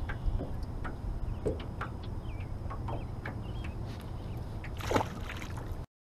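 Water sloshing and small knocks around a small jon boat as a pike is handled over the side for release, with a louder splash about five seconds in; a steady low wind rumble on the microphone underneath. The sound cuts off suddenly near the end.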